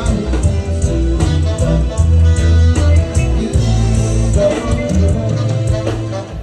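Background music with guitar, a steady bass line and a regular drum beat.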